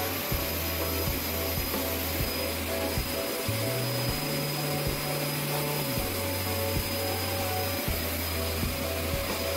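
Pet grooming hose dryer blowing a steady rush of air into a chow chow's thick coat. Background music with a changing bass line plays underneath.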